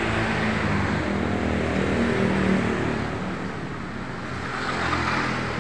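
Road traffic: motor vehicles passing by. Their engine noise swells, fades a little past the middle and swells again near the end.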